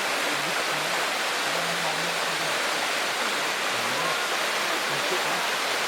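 Jungle waterfall cascade, water rushing in a steady, even roar.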